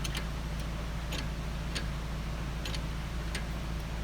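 Irregular sharp clicks, a few a second at uneven spacing, over a steady low hum.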